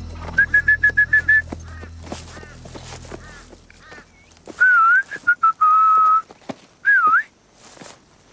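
A person whistling to call a dog. It starts with a quick run of short whistle pips, then comes a few longer warbling whistles that dip and rise, and one held note.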